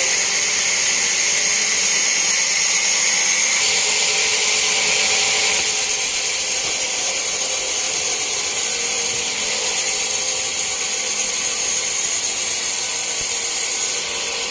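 Band sawmill running, its blade cutting lengthwise through a large teak log: a loud, steady high hiss with a thin whine over it.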